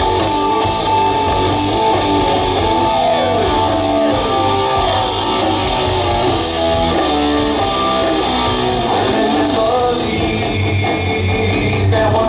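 Rock band playing live: electric guitar leads over bass and drums, with several downward-sliding guitar notes a few seconds in.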